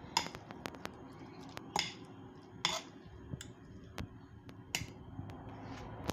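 A fork mashing avocado in a ceramic dish, its tines clicking irregularly against the dish, with a few louder clicks among many light ones.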